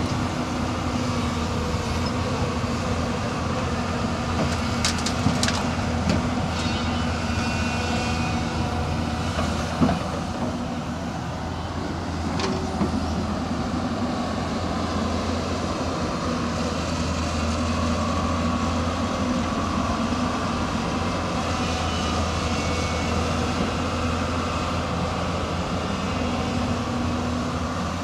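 Hyundai 215L crawler excavator's diesel engine running steadily under load while it digs and swings its bucket. There are a few sharp knocks in the first half.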